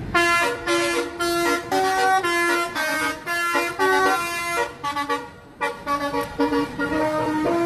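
Bus telolet horn playing a melody of short notes that step up and down in pitch, with a brief break about five seconds in.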